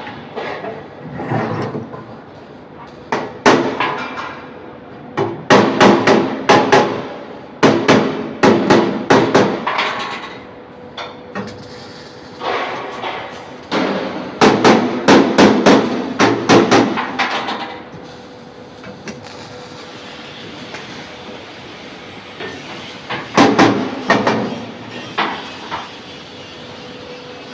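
Hammer blows on metal in fast runs of many strikes, with short pauses between the runs, as in fabricating a metal box.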